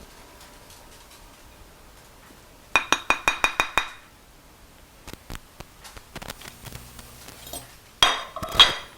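A utensil clinking against a dish while food is served: a quick run of about nine ringing clinks a few seconds in, a few softer taps, then two more loud clinks near the end.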